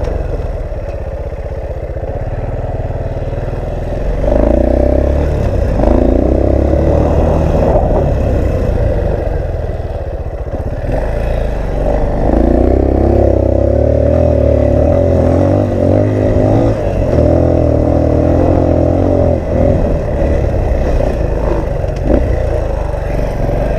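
Off-road vehicle engine pulling under load up a trail hill, revving up about four seconds in and again about halfway through. Wind buffets the microphone throughout.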